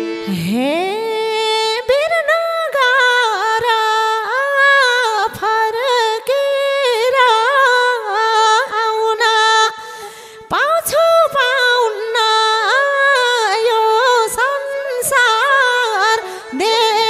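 Unaccompanied Nepali folk (dohori) singing: one high voice draws out a long, wavering, ornamented melodic line with no drums or instruments under it. The line breaks off briefly about ten seconds in, then resumes with an upward slide.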